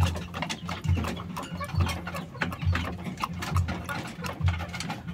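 Rooster pecking feed from a plastic bowl, its beak striking in quick irregular clicks. Under it a low thump repeats a little faster than once a second.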